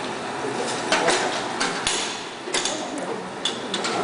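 Automatic walnut cake forming and baking machine running: irregular sharp clicks and clacks from its moving mould chain and batter-depositing mechanism over steady machine noise.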